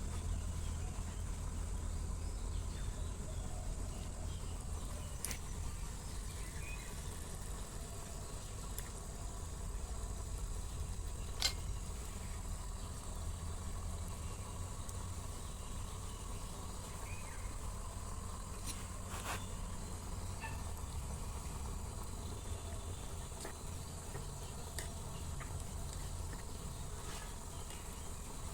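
Outdoor background: a steady low rumble with a thin, steady high insect-like drone, and a few sharp clicks, the loudest about 11 seconds in.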